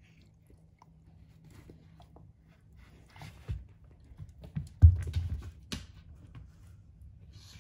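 A Redbone Coonhound and a cat tussling on a rug: faint scuffling at first, then a few thumps and scrabbling paws, the loudest thump about five seconds in.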